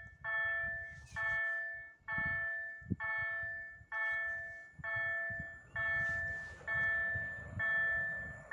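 Electronic railway warning bell, of the kind used at level crossings, ringing a steady series of chiming strikes, a little over one a second, each one dying away before the next, over a low rumble.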